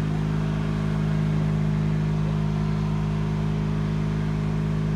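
Small engine of a hydraulic rescue-tool power unit running steadily at constant speed, a loud even drone.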